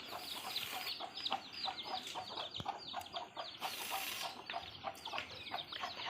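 A group of baby chicks peeping continuously: many short, high chirps that slide downward, overlapping in a rapid stream. Brief rustling noise near the start and again about four seconds in.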